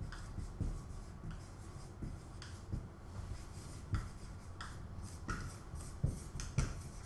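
Marker pen writing on a whiteboard: a series of short, irregular scratchy strokes as words are written out.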